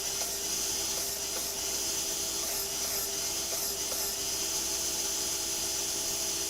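Power sander running steadily against wood planks, a constant motor whine with a sanding hiss, smoothing off saw-blade marks.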